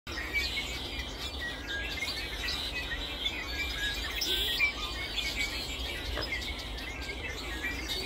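Small birds chirping busily, many short high chirps overlapping, over a steady low rumble.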